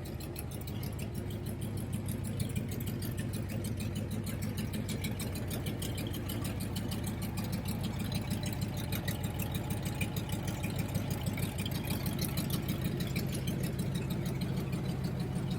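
Car engine idling steadily, a low, even running hum with a fast regular pulse.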